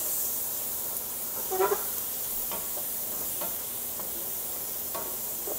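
Chopped onions sizzling steadily in a hot stainless steel pan, with a wooden spoon stirring and scraping the browned fond up from the bottom. A short pitched sound cuts in about a second and a half in.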